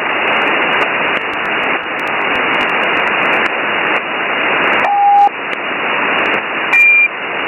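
Steady, loud hiss of HF upper-sideband radio static on 8918 kHz with no station transmitting. A short steady beep sounds about five seconds in, and a brief higher-pitched tone near the end.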